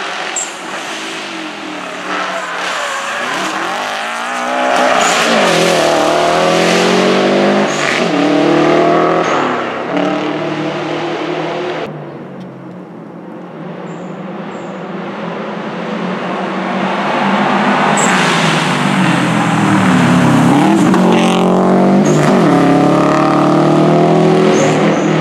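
Subaru Impreza GC8 rally car driven hard, its engine revving up and dropping back again and again as it comes close and passes. About twelve seconds in the sound cuts to a quieter stretch, then the engine rises again and stays loud to the end.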